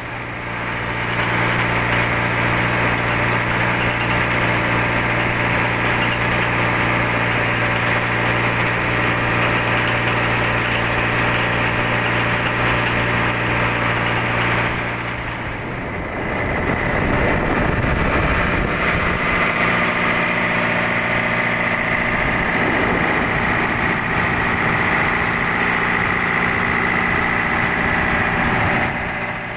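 Fishing boat's inboard engine running steadily under way, heard on deck close to the engine. About halfway through the sound dips and shifts, then runs on with a steady high whine on top.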